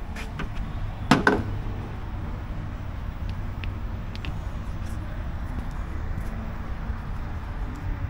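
A steady low mechanical rumble, with two sharp knocks close together about a second in and a few faint ticks later.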